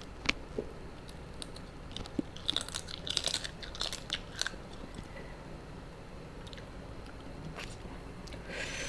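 Close-miked eating: a person biting and chewing a spicy seafood papaya salad, with a run of crisp crunches in the middle and a short hiss near the end.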